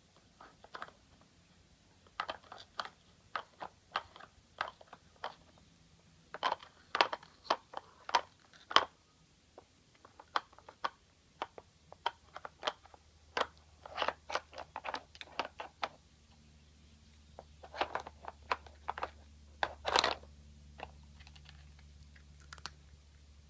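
A cat working a plastic Nina Ottosson dog brick treat puzzle: irregular clicks and clacks of the plastic pieces being pushed and slid, mixed with crunching of dry treats being eaten.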